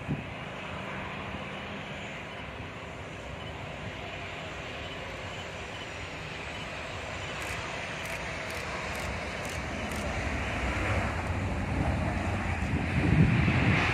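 Boeing 737-800 jet landing, its CFM56 turbofan engines heard as a steady rush with a faint falling whine. The noise grows louder through the rollout, and a low rumble swells near the end.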